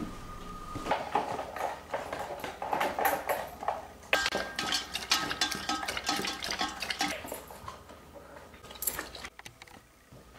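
A dog eating from a metal bowl, its food and the bowl clinking in quick, irregular clicks.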